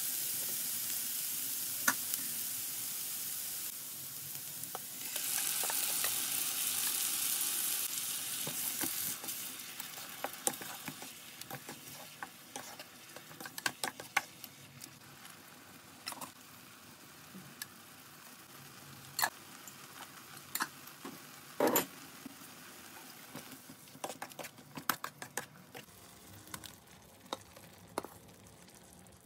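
Chopped chilies and garlic sizzling in a nonstick frying pan, stirred with a wooden spatula. The sizzle is strongest for the first ten seconds or so and then fades, leaving scattered knocks and scrapes of the spatula on the pan, with one louder knock about three-quarters through.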